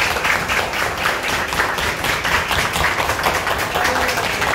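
A group of people applauding with steady, rapid hand clapping.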